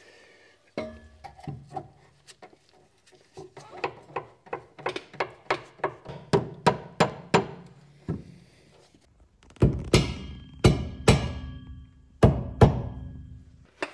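Hammer blows on a rear differential mount, driving it and its 3D-printed TPU bushings into place: a steady run of sharp knocks, about two a second. The heaviest blows come near the end, and some ring briefly with a metallic tone.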